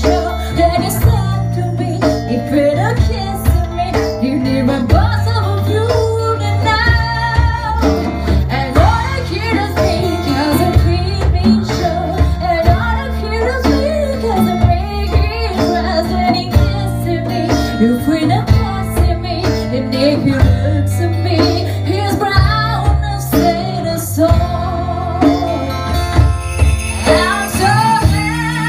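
Live band music with a singer: vocals over guitars and conga drums, with a steady beat.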